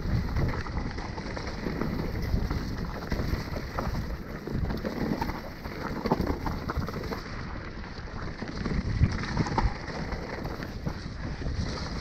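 Mountain bike descending a dirt and leaf-covered singletrack at speed: tyres rolling over the ground and the bike rattling and knocking over bumps, under a steady rush of wind noise on the microphone.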